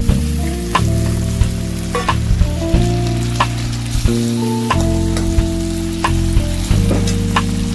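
Chopped tomatoes and onions sizzling in hot oil in a stainless steel kadai, with a steel spatula knocking and scraping against the pan as they are stirred, about once or twice a second. Soft background music with held notes plays underneath.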